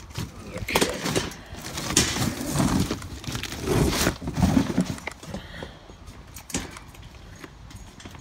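Knocks and clatter from a steel mesh garden cart's frame being handled, with cardboard packaging rustling; busy for the first five seconds or so, then quieter.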